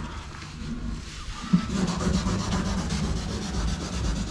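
Hand sanding of a moulded plastic car side skirt with 180-grit sandpaper, in repeated scratchy strokes, roughing up the shiny plastic so the bonding adhesive will stick. A single knock comes about one and a half seconds in.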